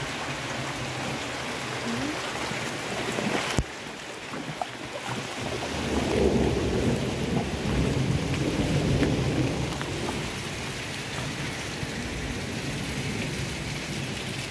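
Heavy rain falling steadily. It breaks off sharply about three and a half seconds in, and a louder low rumble swells from about six to ten seconds in.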